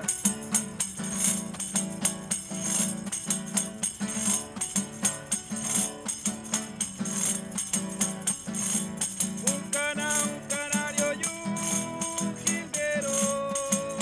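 Cueca played on a strummed acoustic guitar, with a small wooden hand tambourine (pandero) jingling and tapping a steady beat. A man's singing voice comes in about two-thirds of the way through, holding long notes.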